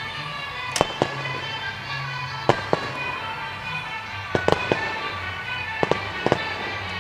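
Aerial fireworks bursting overhead: about a dozen sharp bangs, several coming in quick clusters of two to four, over music playing steadily underneath.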